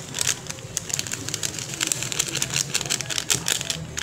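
Seasoning sachet crinkling as it is handled and tipped out over a bowl of raw chicken, a quick irregular run of small crackles.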